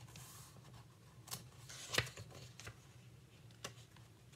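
Quiet handling of a picture book: a few faint clicks and taps of paper and cover, the sharpest about two seconds in, over a low steady room hum.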